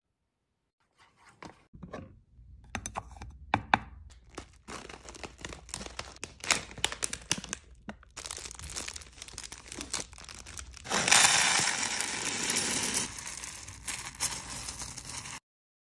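Plastic zip bag of green hard wax beads crinkling as it is handled and opened, with the small beads rattling and spilling into a wax warmer's metal pot; the loudest, densest stretch comes about eleven seconds in.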